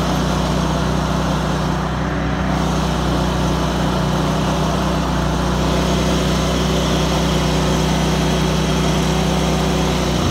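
John Deere riding lawn mower's engine running at a steady speed, heard close up from the seat.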